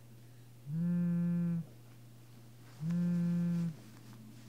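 Mobile phone vibrating, buzzing twice in steady pulses about a second long and about two seconds apart, over a low steady hum.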